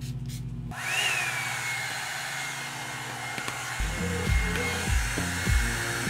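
Revlon One-Step Volumizer hot-air brush switching on under a second in: a rush of blown air with a motor whine that rises briefly, then settles to a steady pitch as it runs. Background music plays underneath, with a heavy beat coming in about four seconds in.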